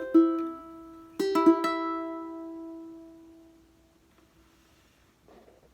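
Solo ukulele playing the closing notes: a single plucked note, then about a second in a rolled final chord that rings and fades away over a couple of seconds. A faint rustle follows near the end.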